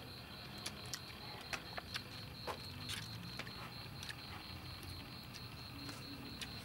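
Eating sounds: scattered sharp clicks and small crackles as people chew and fold leaf wraps of fish salad. A steady, high, pulsing insect trill runs behind them.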